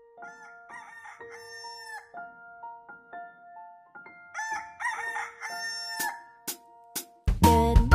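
Soft, gentle music with held notes and chime-like tones, then a rooster crowing cock-a-doodle-doo a little past the middle. Just before the end, loud, upbeat children's song music starts.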